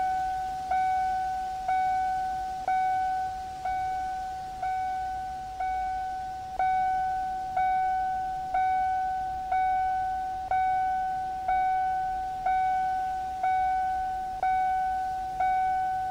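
Car's warning chime dinging steadily, one pitch repeated about once a second, each ding fading before the next.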